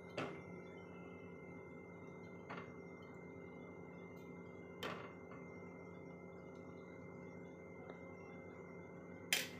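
A steel spoon clinking and scraping against a steel bowl and a metal kadai as ghee is scooped into the pan: a few soft, separate clinks over a faint steady hum, with the loudest scrape near the end.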